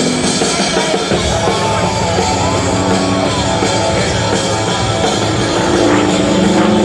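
Rock music with a drum kit, played loud and steady.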